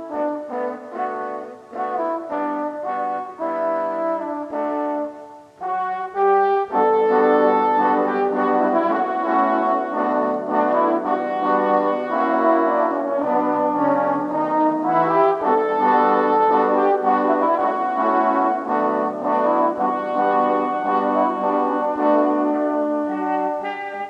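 Several overdubbed French horn parts playing a pop-song arrangement in harmony. Shorter, lighter chords come first; after a brief break about six seconds in, fuller, louder sustained chords follow.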